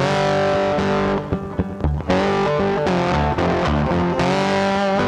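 Background music with electric guitar and bass.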